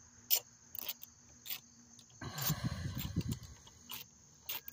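Scattered sharp clicks of a Torx bit driver working the steel bolts of a plastic engine cover. A second or so of scraping and handling noise comes in the middle as a bolt is broken loose.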